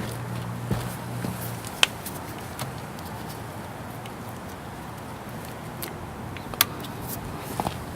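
Scattered sharp clicks and taps of tools and parts being handled during work on a motorcycle's clutch controls, over a low hum that fades out about two seconds in.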